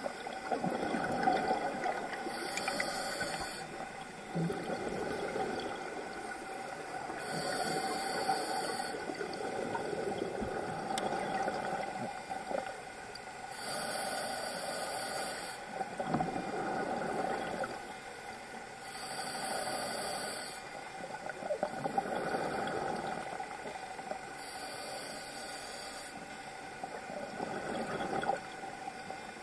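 A scuba diver breathing through a regulator underwater, about five slow breath cycles. Each breath is a short hiss as air is drawn through the demand valve, followed by a longer gurgling rumble of exhaled bubbles.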